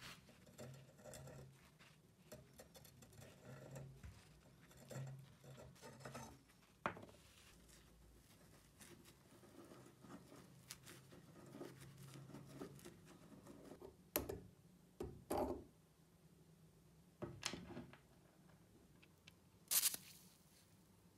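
Faint handling of a rusty hacksaw frame with metal tools: light scraping and tinkering as a screwdriver works the slotted screw of the blade clamp, with a few sharp clicks and knocks, the loudest near the end.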